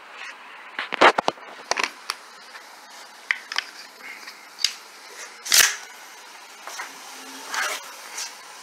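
Handling noise from a handheld phone camera: scattered sharp clicks and knocks, with a quick cluster of knocks about a second in and one louder burst a little past the middle, over a steady low room hiss.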